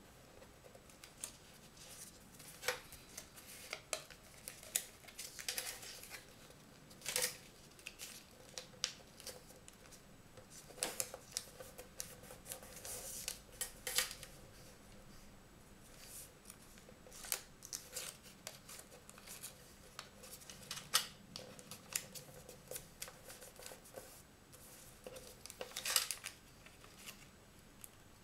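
Origami paper being folded by hand on a table: irregular crisp rustles and sharp crackles as flaps are turned and creases pressed down, with short pauses in between.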